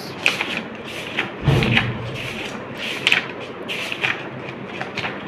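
Paper rustling as the pages of a workbook are turned and handled, in a string of short rustles, with a dull thump about a second and a half in.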